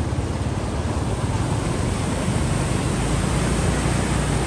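Steady rush of turbulent water pouring through a weir beneath a bridge.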